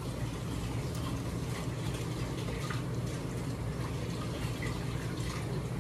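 Kitchen tap running with a steady rush of water and a few light clicks and clatters, over a steady low hum.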